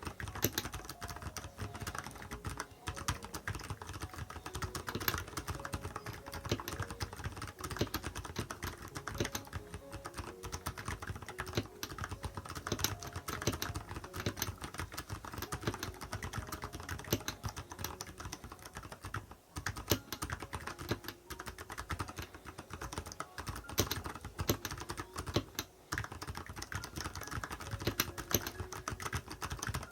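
Continuous fast typing on a Nuphy Halo 65 mechanical keyboard fitted with silent brown (low-noise tactile) switches: a steady stream of keystrokes with a couple of brief pauses.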